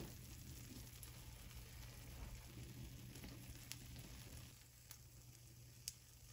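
Faint sizzling of sesame-coated glutinous-rice cakes (buchi) shallow-frying in oil in a pan, easing slightly past the middle, with a few sharp ticks.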